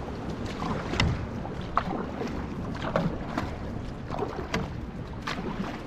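Outrigger canoe (va'a) paddle strokes: the blade catching and splashing in the water about once a second, over a steady rush of water and wind against the microphone.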